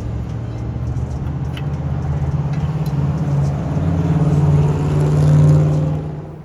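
A vehicle engine running, rising slowly in pitch and loudness for about five seconds, then dropping away suddenly near the end.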